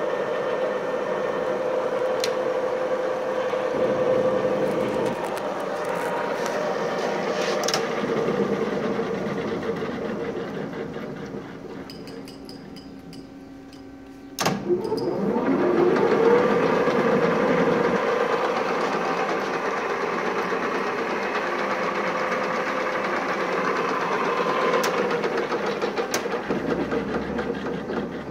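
LeBlond engine lathe running with a steady machine hum. The hum dies down before the middle, then a click is followed by a rising whine as the spindle speeds back up and runs steadily again.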